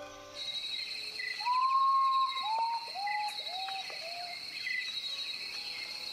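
Tropical rainforest ambience: a steady, pulsing high insect trill, with a bird whistling five clear notes, one long and then four shorter ones each a little lower, about one and a half seconds in.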